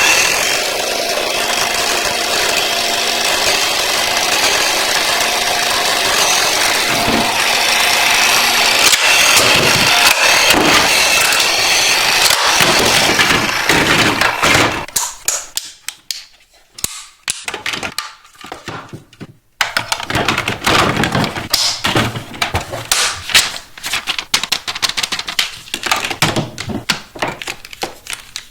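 A small motor runs steadily for about fourteen seconds and then stops. Irregular sharp plastic clicks and taps follow.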